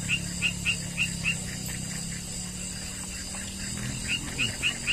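An animal calling outdoors: runs of short, high, falling chirps, about four a second, in two bouts, over a steady low hum.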